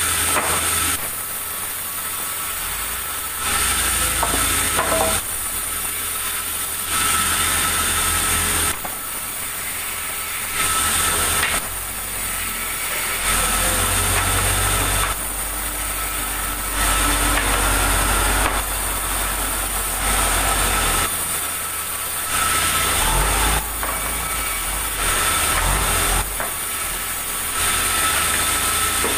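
Sawmill machinery running with a steady high whine, its noise switching abruptly between louder and quieter stretches every two to three seconds as timber is sawn.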